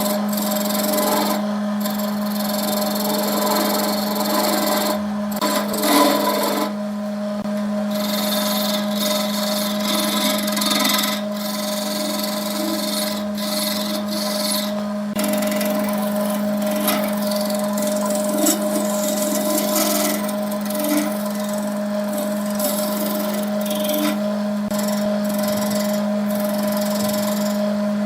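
Wood lathe running with a steady motor hum while a tool scrapes against the spinning wood-and-epoxy workpiece, the scraping stopping briefly a few times.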